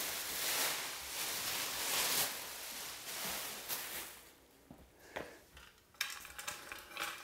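Clear plastic sheeting rustling and crinkling as it is pulled and handled, for about four seconds. Then a few light clicks and short rustles as things are handled.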